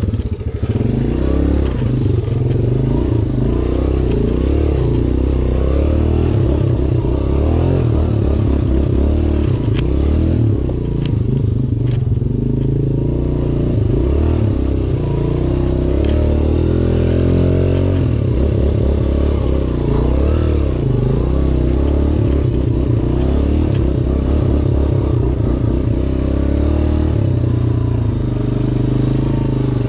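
Suzuki DR-Z125L's small four-stroke single-cylinder engine revving up and down as the dirt bike is ridden over slippery wet ground, the revs rising and falling as the rear wheel struggles for grip. A few sharp clicks come through about ten and twelve seconds in.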